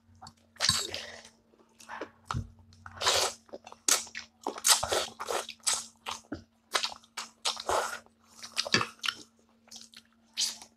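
Close-up eating sounds: biting, crunching and wet chewing of sauce-coated chicken feet, with noodles sucked up, in short irregular bursts. A faint steady hum sits underneath.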